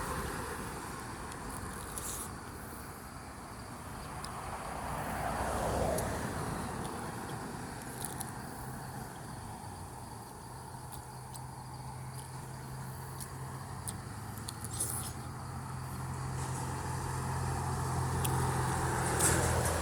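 Roadside ambience: a vehicle passes, loudest about six seconds in, then a low steady engine hum sets in and grows louder toward the end, with faint insect chirps above it.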